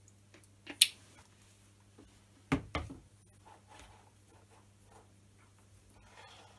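Hands working a Myford ML10 lathe tailstock and a pump oil can on a wooden bench: a sharp click about a second in, then a heavy thud with a smaller knock just after as the oil can is set down, followed by faint rustling and light clicks near the end.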